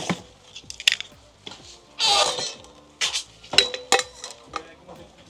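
A series of light clinks and knocks as a drinks tumbler and its lid are handled and set down, with a short scraping rustle about two seconds in.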